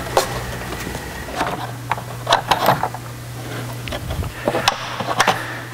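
Clicks and knocks of a motorcycle's seat and plastic tail bodywork panels being lifted off and handled, in two clusters, over a steady low hum.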